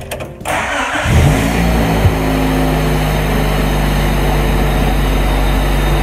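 1992 Honda Civic's four-cylinder engine being started, heard from inside the cabin. After a short burst of cranking it catches about a second in with a quick rise in revs, then settles into a steady idle.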